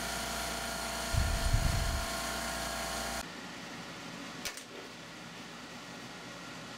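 Milling machine spindle running with a steady whine of several tones while drilling into a gasblock and hardened nitrided barrel; a low rumble comes about a second in. About three seconds in it cuts abruptly to a quieter steady hiss, with one sharp click a little later.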